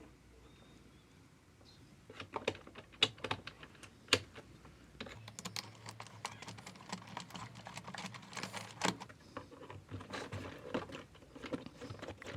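Irregular small clicks and rattles of a plastic RC car wheel being handled, unscrewed and fitted to its axle. They start about two seconds in and carry on unevenly.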